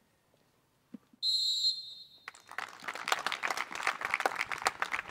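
A referee's whistle blown in one short, steady, high blast, followed about a second later by a crowd of players and spectators clapping.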